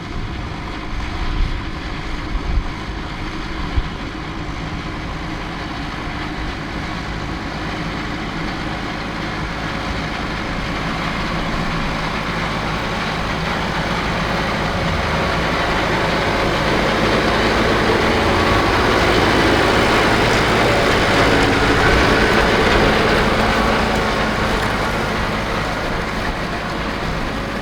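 Farm tractor engine running steadily under load while ploughing. It grows louder to a peak about three-quarters of the way through, then eases off. There are a few short thumps in the first few seconds.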